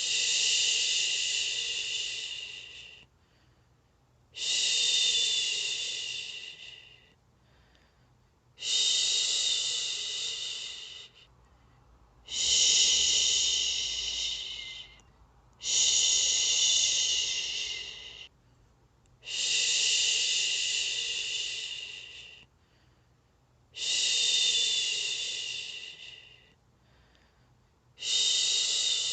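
A person making long, drawn-out "shhh" shushing sounds, each about three seconds long, repeated about every four seconds with short quiet gaps between: the steady shushing used to soothe a baby to sleep.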